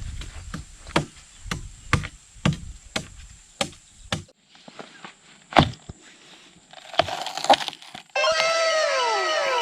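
Repeated chopping strikes into a bamboo shoot, about two sharp cracks a second, then a few slower, separate blows. Near the end a run of repeated falling ringing tones begins.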